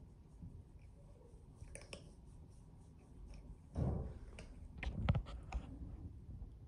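A hand handling a cat up close: soft rustling of fur and skin with scattered light clicks, loudest about four and then five seconds in.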